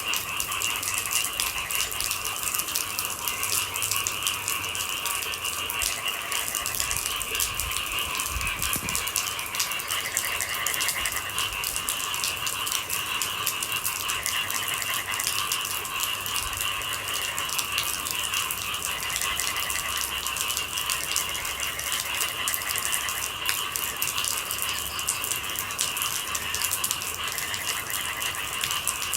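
Steady rain made of dense, fine drop ticks, over a continuous high-pitched chorus of night creatures. Short trills come and go every few seconds.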